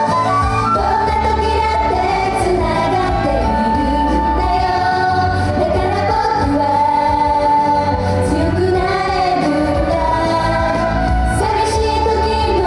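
Live J-pop idol song: female vocals over a live band, the instruments heard up close and loud in the mix.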